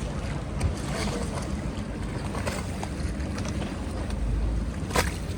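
Wind rumbling on the microphone over water on a moving gondola, with a few light knocks, the sharpest near the end.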